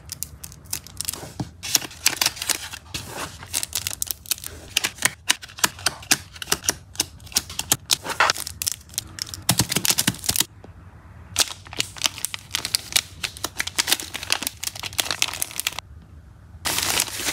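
Plastic photocard sleeves and a clear plastic bag crinkling and rustling as photocards are packed, with many quick clicks and taps of cards and plastic. There is a short lull about ten seconds in.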